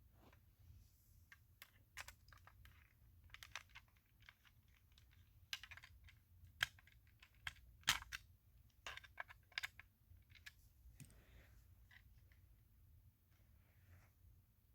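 Faint, irregular clicks and taps of a small hand screwdriver and tiny screws working on a diecast toy car's metal body. The clicks are loudest and closest together in the middle.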